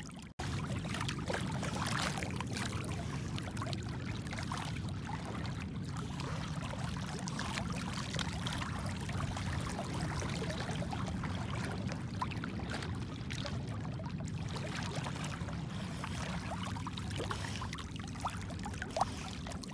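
Shallow seawater sloshing and splashing as someone wades through it, a steady wash with many small splashes throughout. The sound cuts out for an instant just after the start.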